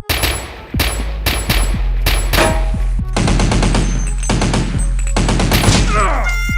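Rapid bursts of machine-gun fire, strike after strike, over background music with a steady low bass. A short falling whistle comes near the end.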